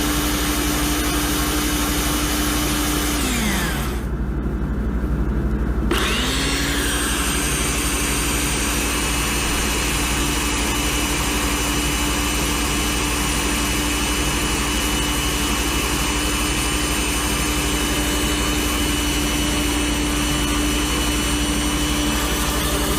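An electric motor running steadily with a constant hum. About three seconds in it winds down and stops, then about six seconds in it spins back up and runs steadily again.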